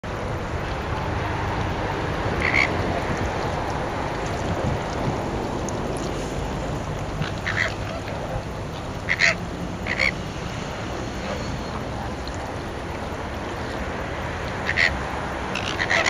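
Greater flamingos calling during their group courtship display: short, loud honking calls, one at a time, a few seconds apart, coming faster near the end, over a steady low background rumble.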